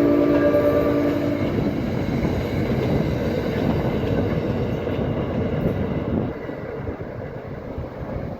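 Commuter train passing through a level crossing: its horn chord trails off in the first second or so, leaving the loud rumble of the passing train, which drops off suddenly about six seconds in.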